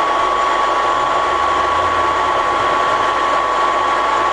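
Z35 radial arm drill running with its spindle turning and the power feed driving the spindle down: a steady mechanical running noise with a constant high whine.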